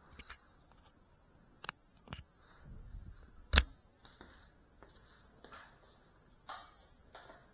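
A few scattered clicks and knocks over quiet room tone, the loudest a sharp knock about halfway through, with a faint steady high whine throughout.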